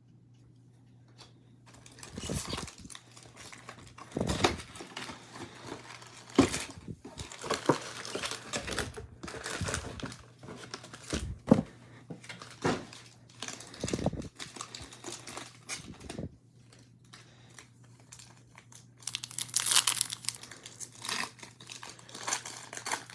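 Foil wrappers of 2022 Topps baseball card packs being torn open and crinkled as the cards are handled: irregular crinkling and rustling, which stops for a few seconds near the end before another burst.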